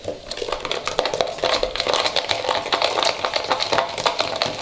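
A sticky glue-based slime mixture being stirred in a bowl, giving a dense, continuous crackling of many small clicks.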